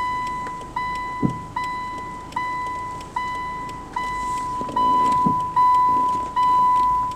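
Car's in-cabin reverse warning chime: a ringing beep that repeats steadily about every 0.8 s, louder in the second half. A low thump about a second in and another near the five-second mark.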